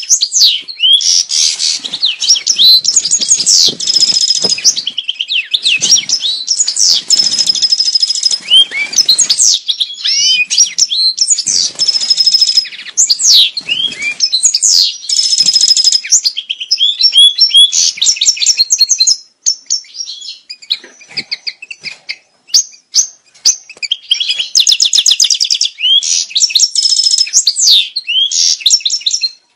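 European goldfinch singing its breeding-season mating song: fast, tumbling twitters with trills and clear whistled notes, phrase after phrase, broken by a couple of brief pauses about two-thirds of the way through.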